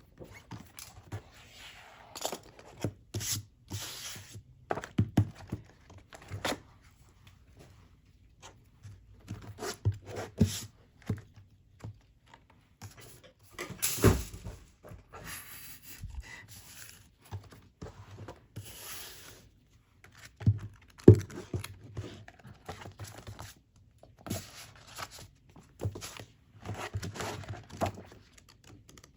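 Unboxing handling sounds: packaging rustling and tearing, with intermittent light knocks and thuds as pieces are handled and set down. The two loudest knocks come about midway and about two-thirds through.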